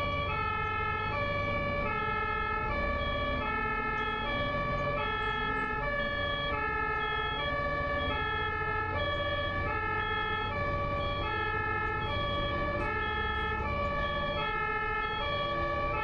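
German two-tone ambulance siren sounding continuously, switching back and forth between a high and a low pitch in an even rhythm, each tone held for well under a second, over a low steady road rumble.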